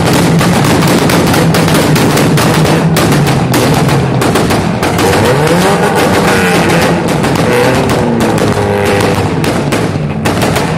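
Car engine held at high revs with a rapid crackling exhaust, its pitch swinging up and down in the middle, as a car spins its wheels in a cloud of tyre smoke.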